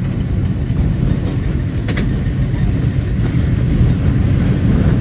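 San Francisco cable car riding along, a steady low rumble, with one sharp clack about two seconds in.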